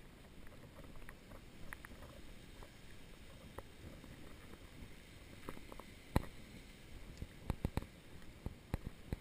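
Wind rumbling on the microphone, with irregular sharp clicks and knocks, the loudest about six seconds in.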